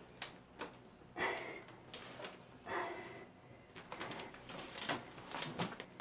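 Thin copper tubing being handled and wound around a wooden pole: irregular light clinks, knocks and scrapes of the metal coils against each other and the wood.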